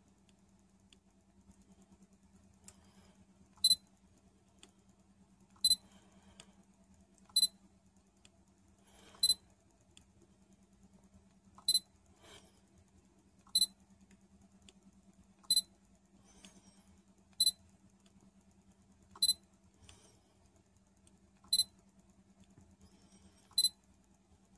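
Sony A7R III focus-confirmation beep sounding eleven times, about every two seconds, each a short high beep marking focus lock in AF-S mode as the shutter button is half-pressed.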